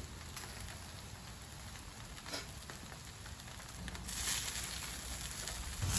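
Meat sizzling over hot charcoal on a disposable foil barbecue tray, a steady crackling hiss that grows louder about four seconds in, with a single light click about two seconds in.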